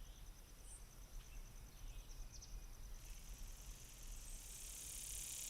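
Faint outdoor ambience: an insect trilling in a fast, evenly pulsing high chirr, with a few brief bird chirps, slowly growing louder.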